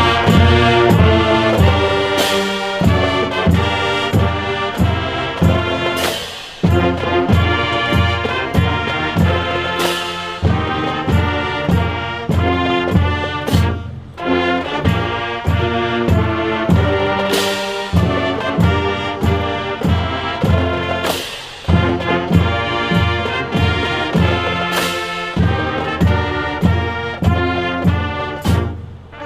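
Brass ensemble playing the national anthem, trumpets and trombones over a steady low beat, in phrases that break briefly every three to four seconds.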